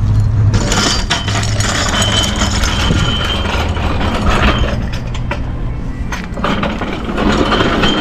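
A vehicle engine running steadily nearby: a continuous low hum under a broad rushing noise, with a faint high whine for a moment about two to three seconds in.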